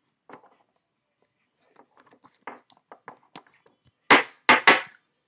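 Sports trading cards being handled on a table: a run of light clicks and taps, then three quick, loud swishing slides of cards close together about four seconds in.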